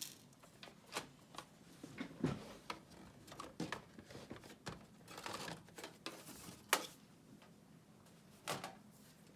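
Scattered clicks, taps and a brief scrape of a screwdriver and plastic parts while the screws of an Alienware M17x R3 laptop's back cover are undone and the cover is taken off. The sharpest click comes just before seven seconds in.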